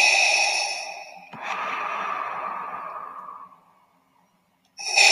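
Darth Vader's mechanical respirator breathing sound effect: a hiss through the mask, a click, then a lower, softer hiss that fades out. After a short silence the next breath begins near the end.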